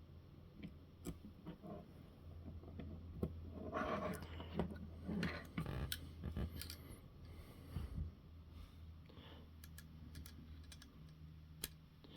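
Small hand tools and metal parts being handled during RC car assembly: scattered light clicks and ticks, with a burst of scraping and rustling about four to six seconds in, over a steady low hum.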